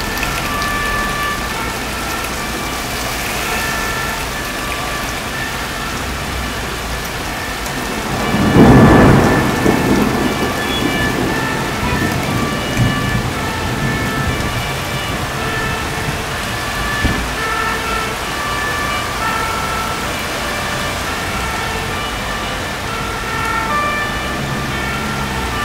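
Heavy rain pouring steadily, with a loud clap of thunder about eight and a half seconds in that rumbles away over a couple of seconds. Short high tones come and go over the rain.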